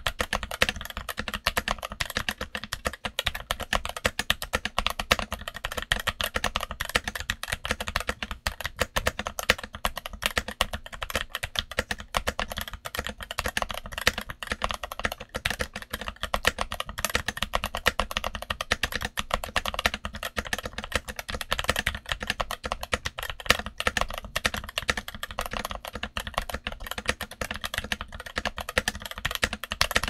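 Continuous fast typing on a Redragon K530 mechanical keyboard with Redragon Brown tactile switches and Cherry-profile doubleshot ABS keycaps, dampened with a Tempest mod, switch pads and felt: a steady stream of keystroke clacks.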